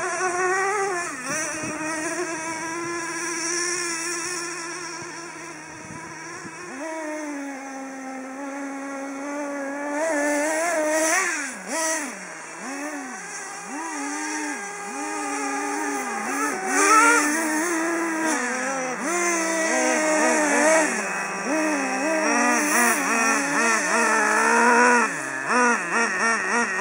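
Small two-stroke glow engine of a nitro RC car, driven with the throttle worked up and down. It holds a fairly steady high drone at first, then about a third of the way in changes to repeated quick rises and falls in pitch as it accelerates and backs off.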